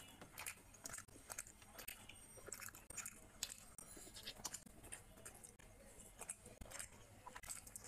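A person chewing grilled chicken close to the microphone, with irregular short mouth clicks.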